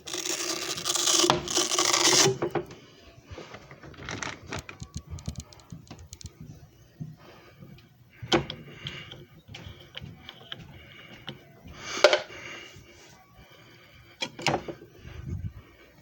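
A loud whirring hiss for about the first two and a half seconds, then scattered clicks and knocks, with short louder bursts about eight, twelve and fourteen and a half seconds in: a disc repair machine and a disc being handled.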